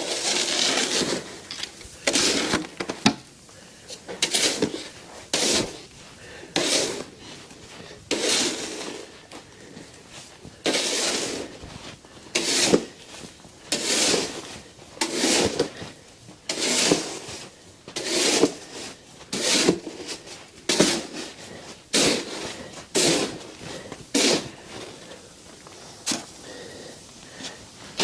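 Snow shovel scraping across a paved driveway, clearing snow in a steady rhythm of strokes about every second and a half.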